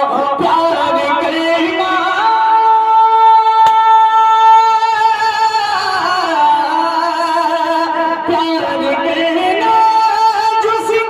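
A naat sung by a solo voice in a long, drawn-out melismatic line, one note held steadily for about three seconds before the voice wavers and turns through ornamented notes. A brief click sounds near the middle.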